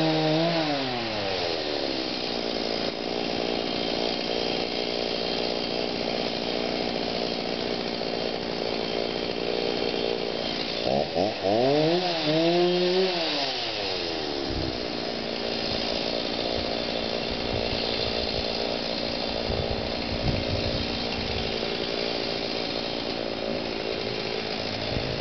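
Chainsaw idling steadily, revved up twice: its pitch falls from high revs back to idle about a second in, then climbs to high revs again for about three seconds halfway through, wavering, before dropping back to idle.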